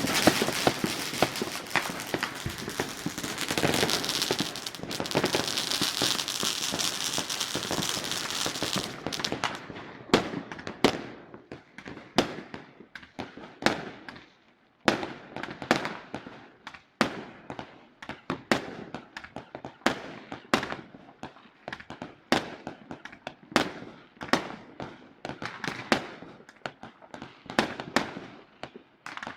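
New Year's fireworks going off: a dense, continuous crackle for about the first nine seconds, then a rapid run of separate sharp bangs, one or two a second.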